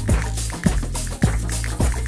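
Electronic dance music: a kick drum hits a little under twice a second over a steady bass line, with bright hi-hat ticks on top.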